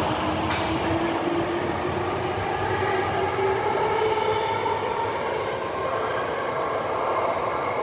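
Tokyo Metro Hanzomon Line subway train pulling out of an underground station, its motors whining gradually upward in pitch as it gathers speed. Its running noise carries on from the tunnel after the last car has left the platform.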